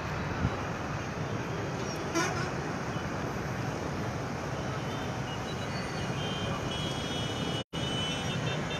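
Steady, even noise of a waterlogged street with motor traffic, and a vehicle horn tooting several times in the second half. The sound cuts out for an instant near the end.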